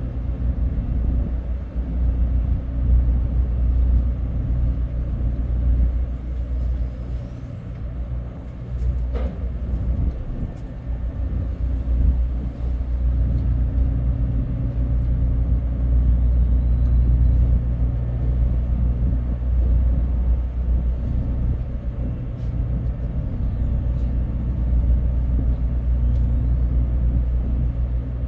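Steady low drone of a ship's onboard machinery, a deep rumble with a hum at several pitches, with one sharp click about nine seconds in.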